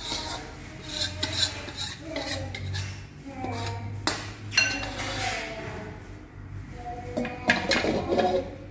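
Metal spatula scraping and clanking against the inside of a metal wok as stir-fried long beans and tempeh are scraped out into a bowl, in irregular strokes with a few sharper knocks and a brief metallic ring.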